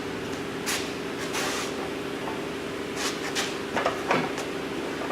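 Scattered knocks, clicks and a brief scrape of tools and parts being handled while working on an engine, over a steady hum.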